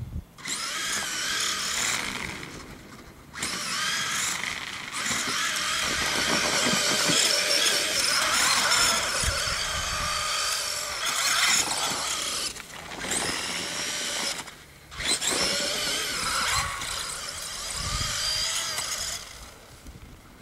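Traxxas E-Maxx brushless RC truck's electric motor and geared drivetrain whining as the throttle is worked, the pitch rising and falling in long bursts. It drops out briefly a few times, about two seconds in, near the middle and again near the end.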